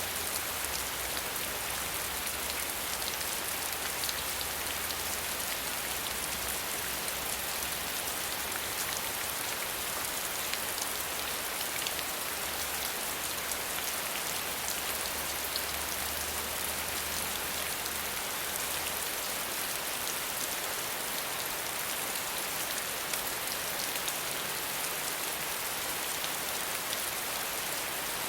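Steady rain falling on a surface: an even hiss with many small drop ticks. A faint low rumble underneath fades out about two-thirds of the way through.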